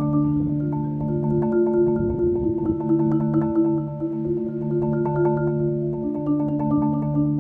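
Marimba played with four yarn mallets: rolled chords, each held for a second or two before moving to the next.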